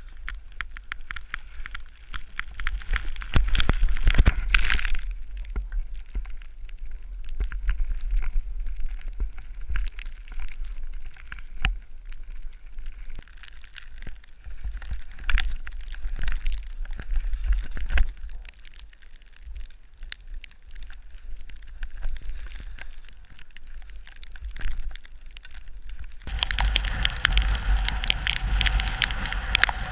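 Skis scraping and crunching over snow in a dense run of crackles, over a low wind rumble on the camera. Near the end the noise switches to a louder, fuller rushing.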